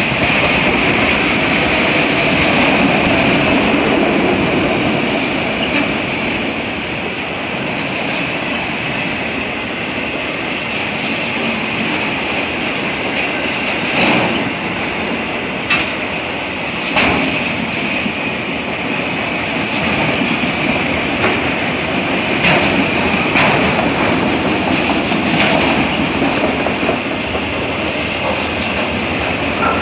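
Freight train of autorack cars rolling steadily past: a continuous rumble and rattle of steel wheels on rail. Sharp clanks and clicks come at irregular moments from about halfway through.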